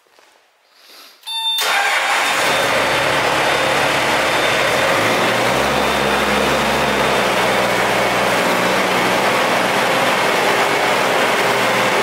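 Case 1845C skid steer's diesel engine cranking briefly and catching about a second and a half in, then running steadily.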